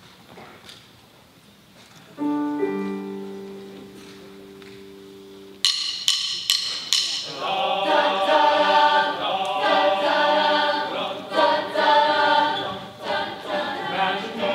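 A held chord of steady tones sounds for about three seconds, then a few sharp clicks start the song and a mixed high school choir comes in singing loudly with percussion.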